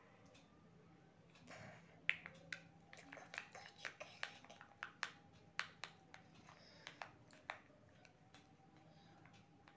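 A quiet room with a run of small, sharp clicks and taps, two to four a second, starting about two seconds in and stopping after about five seconds.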